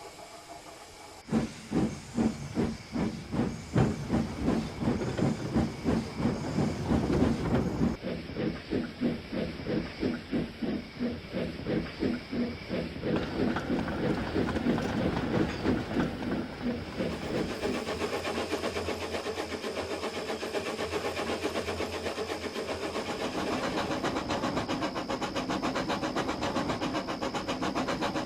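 Steam locomotive chuffing as it starts away: heavy, well-spaced exhaust beats that quicken steadily into a fast, even chuff as it gathers speed. Crickets chirp steadily underneath.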